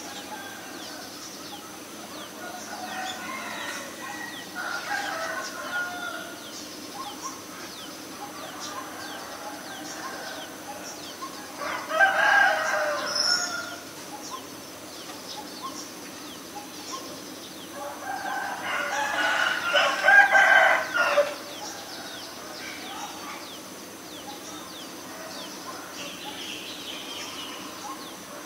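A rooster crowing several times, with two loud crows near the middle, the second one longer, and fainter crows before and after.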